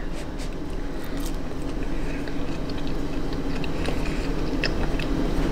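A person chewing a bite of broccoli cheese fritter, with small scattered mouth clicks, over a steady low hum.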